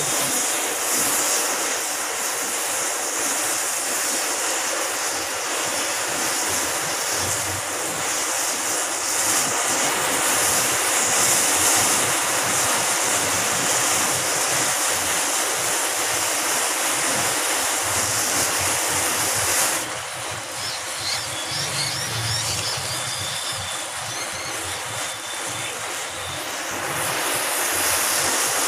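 Large blaze of massed matchsticks burning with a steady rushing noise, a little quieter for several seconds about two-thirds of the way through.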